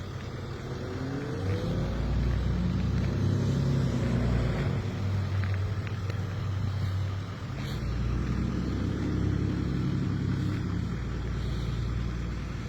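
A motor vehicle's engine rising in pitch as it speeds up about a second in, then running steadily. It eases briefly around the middle and picks up again before dropping off near the end.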